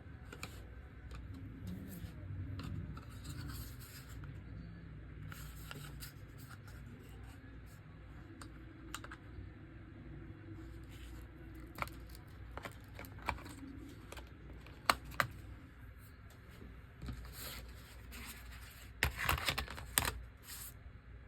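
Light clicks and scraping from handling small plastic and metal laptop parts during a RAM and SSD installation, with a quick flurry of clicks near the end.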